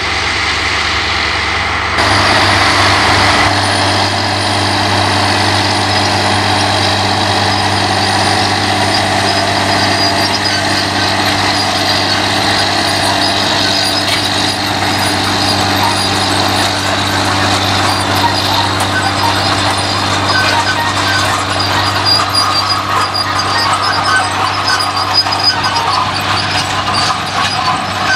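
John Deere 9120 tractor's diesel engine running steadily while working ground, a constant low hum with mechanical noise over it. The sound changes abruptly about two seconds in.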